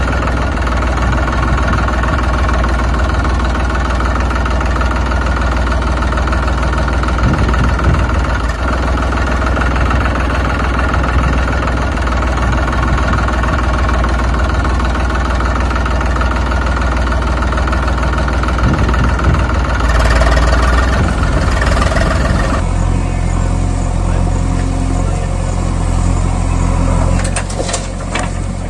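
Tractor engine sound running steadily, a recorded engine laid over the toy vehicles. About three quarters of the way through it changes to a different engine tone.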